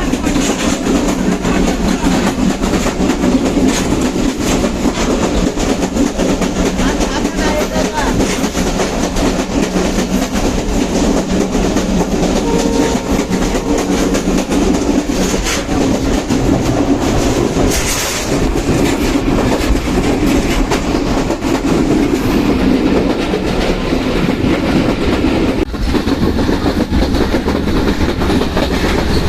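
Train running past at speed, its coaches' wheels clattering over the rail joints in a loud, steady rush of rumble and hiss.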